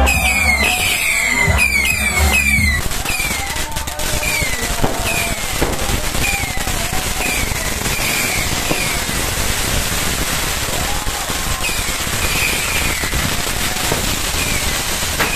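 Fireworks crackling and popping densely and without pause, close by. Music with a heavy bass beat plays under it for the first few seconds, then fades out.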